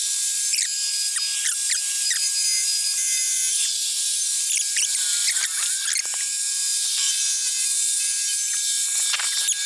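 Sawmill running: a steady high-pitched hiss with many short, gliding squeaks scattered through it.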